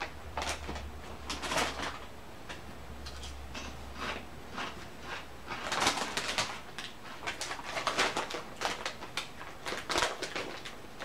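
Lay's potato chip bags crinkling and rustling in short, irregular crackles as they are handled, swapped and reached into.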